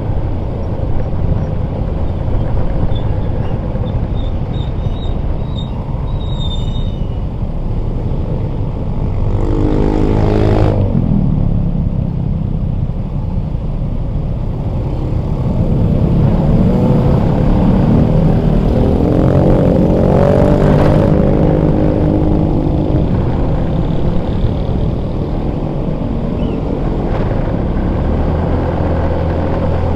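Riding a motorcycle in city traffic: steady low rumble of wind and road noise over a small engine. About a third of the way in the engine's pitch falls as the bike slows, then it climbs again past the middle as the bike speeds up.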